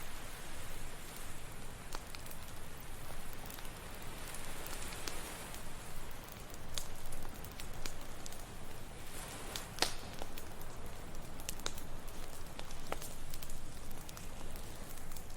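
Campfire crackling, with scattered sharp pops (the loudest a little under ten seconds in), over a steady wash of ocean waves.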